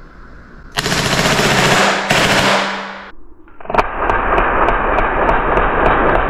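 TAG TG92 CO2 blowback pistol, a Beretta 92–style replica firing 4.5 mm steel BBs, shooting on full auto: about a second in comes a rapid rattling burst of shots, two strings with a split-second break, about two seconds in all, emptying the 20-shot magazine. A sharp click follows, then a steady loud rushing noise.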